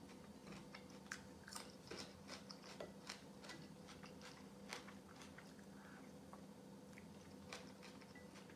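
Quiet eating sounds: soft chewing and small irregular clicks while spoonfuls of kholodnik, a cold beet soup, are eaten with a plastic spoon, over a faint steady hum.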